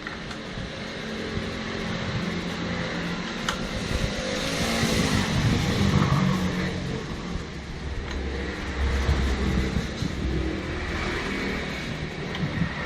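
A motor vehicle's engine running, with its low hum swelling louder for a few seconds near the middle and again a little later.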